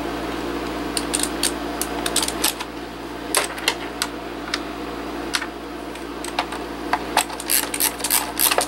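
Small sharp clicks and taps of metal screws and a screwdriver against the plastic bottom case of a Cooler Master QuickFire TK keyboard as the case screws are put back in. The clicks start about a second in and come quickly near the end, over a steady background hum.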